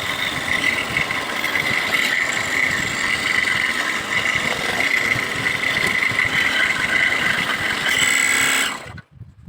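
A small power tool motor running with a steady whine, used on bamboo, cutting off suddenly near the end.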